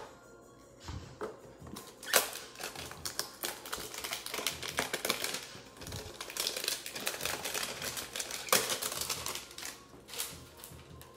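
Plastic wrapping and cardboard of a 2020 Panini Mosaic football hanger box crackling and rustling as gloved hands tear it open, a dense run of quick clicks and crinkles. There are two sharper snaps, about two seconds in and near the end.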